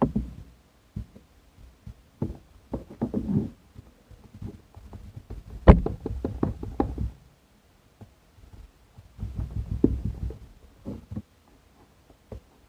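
A cardboard packaging box being handled: irregular knocks, taps and low thumps as the earbuds are worked out of it, the sharpest knock about six seconds in.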